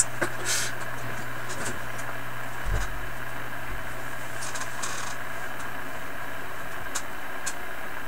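Sony ICF-2001 shortwave receiver switched on and working, giving a steady hiss with a low hum through its speaker. A soft thump comes about three seconds in, and two faint clicks near the end.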